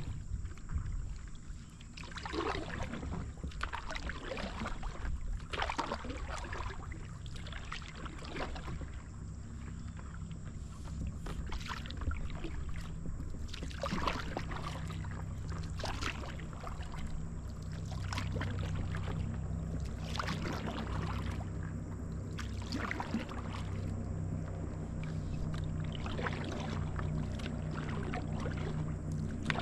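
Paddle strokes dipping and splashing in the river water from stand-up paddleboards, one every one to three seconds, over a steady low rumble.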